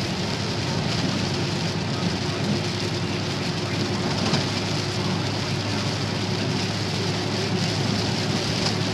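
Steady hiss of rain and tyre spray on a wet highway heard from inside a moving vehicle, over a low, even engine drone.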